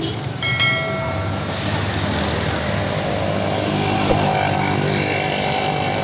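Vehicle engine running steadily while moving through street traffic. Just after the start come a few sharp clicks, then a ringing tone that fades away over about a second.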